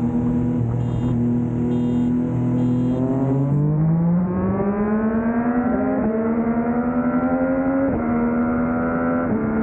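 Yamaha MT-09 three-cylinder engine through a Yoshimura R11 exhaust, holding a steady note for about three seconds. It then accelerates, the pitch climbing and dropping sharply at each of three quick upshifts.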